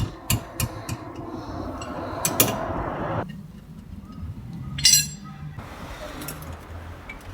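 Metal clinks and clatter of hand tools working on a car's rear wheel hub while the brake backplate (dust shield) is taken off. A rushing noise cuts off suddenly about three seconds in, and a burst of sharp metallic clinks comes near the five-second mark.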